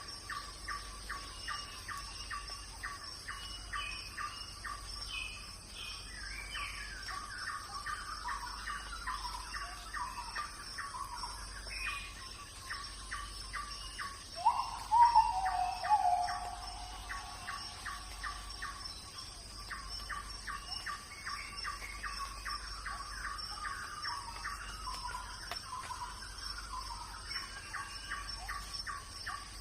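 Forest ambience: birds chirping in quick repeated notes over a steady high-pitched insect drone, with one louder, lower call about halfway through.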